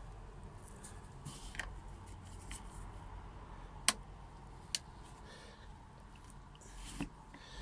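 Small flat-head screwdriver and hands working the plastic seat-belt trim of a car, giving a few sharp clicks. The sharpest comes about four seconds in, with lighter ones shortly after and near the end.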